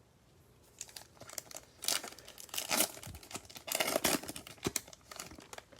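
A foil trading-card pack wrapper being torn open and crinkled by hand, an irregular run of scratchy crackles that starts about a second in and lasts a few seconds.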